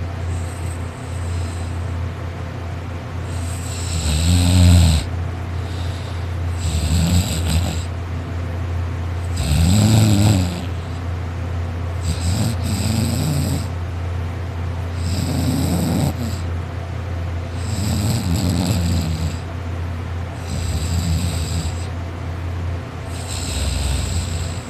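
A man snoring loudly in his sleep: a rasping snore about every two and a half to three seconds, eight in all, the loudest near the start and about ten seconds in. A steady low hum runs underneath.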